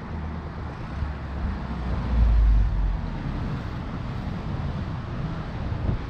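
Strong wind buffeting the camera microphone in gusts, with a heavy low rumbling gust about two seconds in, over the noise of passing road traffic.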